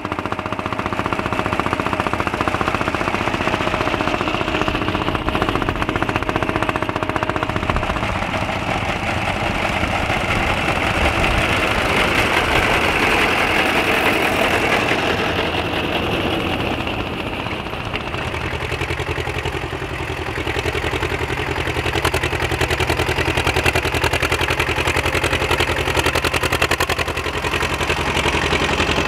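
Vintage tractor engines running steadily under load as they pull ploughs through the soil, with an even, rapid firing beat.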